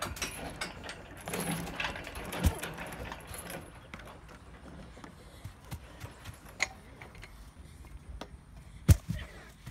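Playground obstacle-course equipment rattling and clanking as a child crosses it: swinging stepping pods on chains and cables clatter densely for the first few seconds, then scattered knocks and footfalls, with one sharp knock near the end.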